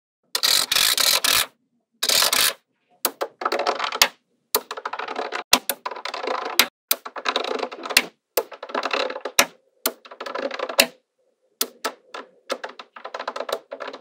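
Small neodymium magnetic balls clicking as they snap onto a slab of magnet balls, in fast runs of sharp clicks with short pauses between. The first two and a half seconds hold two louder, denser clatters.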